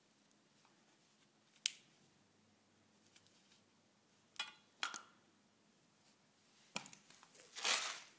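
Handling noise from a gloved hand moving nunchucks and other weapons: a sharp click under two seconds in, two short scraping rustles around four and a half and five seconds, then a click and a longer, louder rustle near the end.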